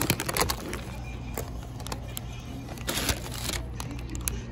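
Paper pastry wrapper crinkling and crackling as it is handled and folded open, loudest near the start and again about three seconds in, over a steady low hum.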